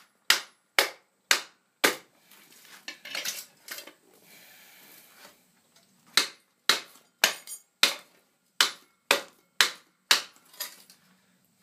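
Small sledgehammer striking the steel brake backing plate of a Toyota 7.5-inch rear axle, metal-on-metal blows knocking the plate loose from the axle housing. Four blows about two a second, a pause of about four seconds, then about ten more at the same pace.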